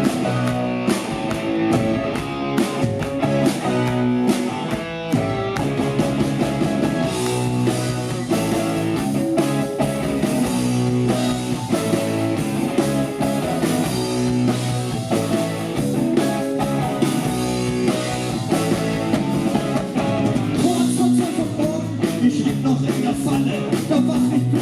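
Live rock band playing a song's instrumental intro: electric guitars over a steady drum beat.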